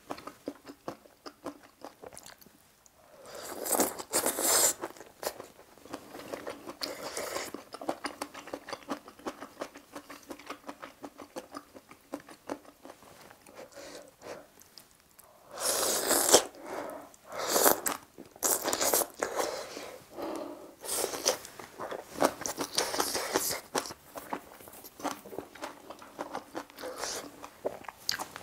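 Ramen noodles from budae-jjigae being slurped and chewed close to the microphone: several loud slurps, about 4 seconds in and again from about 16 to 24 seconds, with quick wet chewing clicks throughout.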